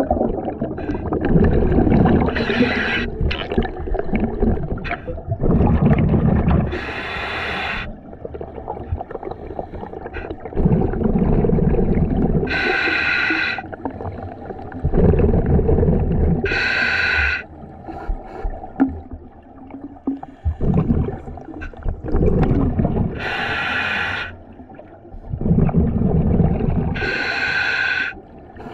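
Scuba diver breathing through a regulator underwater: a rumbling burst of exhaust bubbles followed by a short hissing breath through the regulator, repeating about every four to six seconds.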